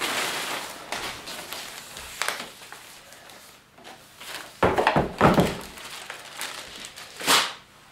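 Plastic packing wrap rustling and crinkling as it is pulled aside, then a few knocks and clatters halfway through as the unpacked parts are set down on a table.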